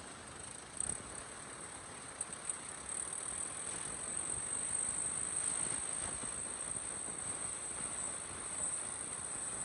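Kubota M6040SU tractor's four-cylinder diesel running under load, pulling a disc plough that cuts and turns dry, clod-strewn soil, with a few sharp knocks about a second in and again a second or so later. A steady high-pitched insect buzz from the field carries over everything.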